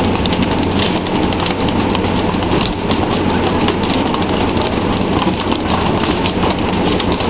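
Steady rushing hiss of water spray and churned sea alongside a fishing vessel, over a low steady hum of the ship's engine, with frequent sharp slaps and knocks of fish landing and flapping on the deck and poles striking the rail.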